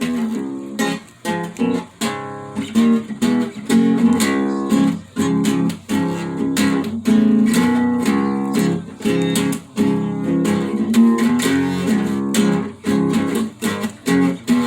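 Acoustic guitar strummed in chords, with a steady run of strokes.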